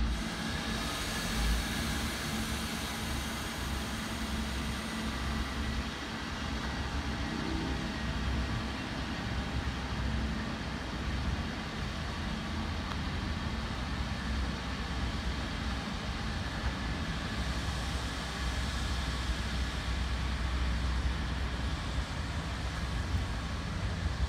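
Endeavour-class diesel railcar set running at low speed as it moves off along the platform: a steady low diesel hum.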